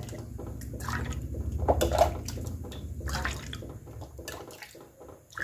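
Hot milk being scooped with a steel ladle from a steel pot and poured into a bowl: liquid splashing and trickling, with a few sharp knocks of the ladle against the metal rims.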